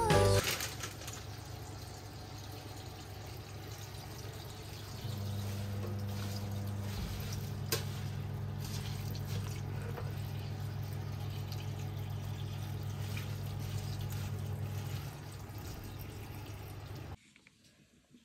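Water running from a kitchen tap into a sink. A steady low hum joins about five seconds in, and everything cuts off abruptly near the end.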